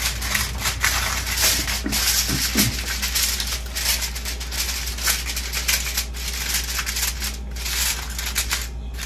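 Aluminium foil crinkling and rustling in a dense run of crackles as it is pressed and crimped down around the rim of a baking dish.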